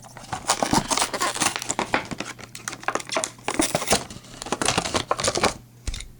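Toy packaging being crinkled and torn open: a dense run of crackling, rustling and tearing that stops abruptly a little before the end.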